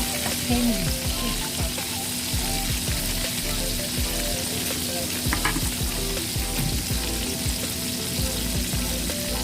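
Chicken pieces frying in hot oil, a steady, even sizzle with no break.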